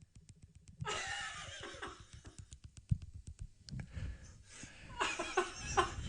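Fast, even clicking of fingers tapping on a person's front teeth, about eight clicks a second, with a voice heard over it about a second in and again near the end.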